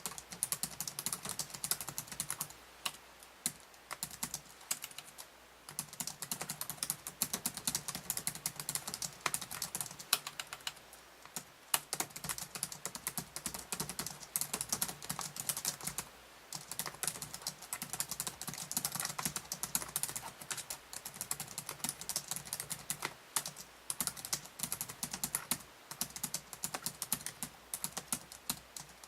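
Fast touch-typing on a Z330-GE3SK laptop's keyboard: a dense, rapid stream of key clicks, broken by a few brief pauses.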